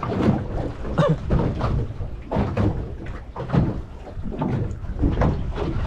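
Irregular hollow knocks and thumps aboard a fibreglass fishing boat, several in a row, over a steady low rumble.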